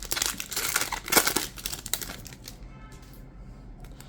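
Foil booster-pack wrapper crinkling and crackling as a pack is opened and the cards slid out, dense for the first two and a half seconds, then quieter.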